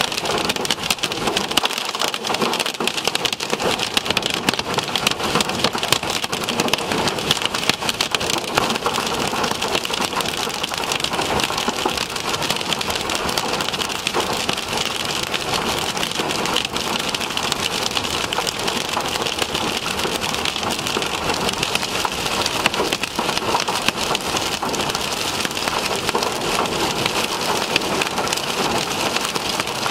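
Heavy rain and hail hitting the roof and windshield of a moving vehicle: a dense, steady patter of countless small impacts.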